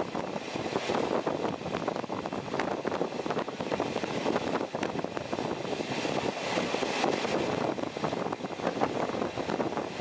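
Passenger train coach running at speed, heard at an open window: a steady rumble of wheels on the rails with frequent rattling clicks and wind noise.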